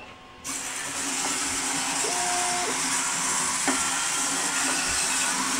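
Two small mini-sumo robots start up about half a second in, and their electric drive motors run with a steady whirring hiss as they drive around the ring. A brief tone sounds about two seconds in, and a click a little later.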